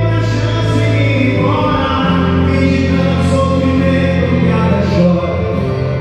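Music: a song with sung vocals holding long notes over heavy bass, played loud.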